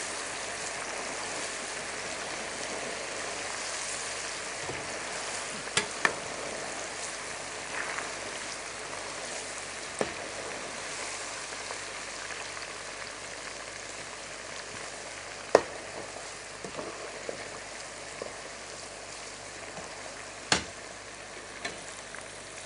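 Chicken pieces deep-frying in a pot of very hot oil, a steady sizzle that eases slightly over time. A few sharp clicks of the metal slotted spoon against the pot break through it.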